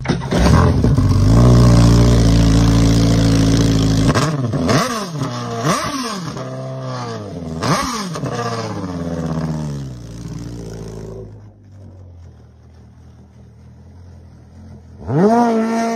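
Jet ski engine revving hard while the craft sits in shallow water, then blipped sharply several times before dropping back to a low idle. Near the end another engine revs up quickly.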